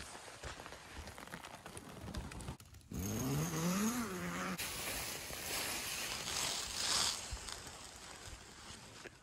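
Rustling of tent fabric at first. About three seconds in, a short pitched sound rises in pitch, falls back and holds briefly. It is followed by a steady rush of wind noise that swells once near the end.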